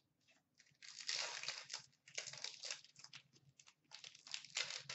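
Foil wrapper of a hockey card pack crinkling and tearing as it is handled and ripped open by hand, in three bursts of rustling about a second each.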